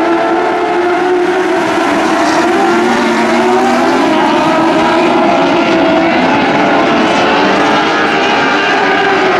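A field of motorcycle-engined dwarf race cars circling a dirt oval, several engines running together at steady revs, their overlapping pitches drifting slowly up and down.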